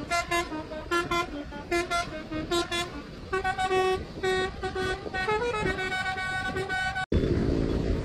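Telolet-style multi-tone musical horn on a motorcycle playing a tune: quick short notes at first, then longer held notes from about three seconds in. A little past seven seconds it cuts off abruptly to louder engine and road noise.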